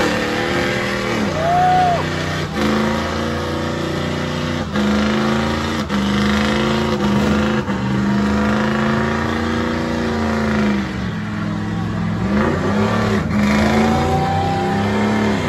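A car engine is held at high revs while the car does donuts, with tyre noise under it. The revs drop and climb back several times.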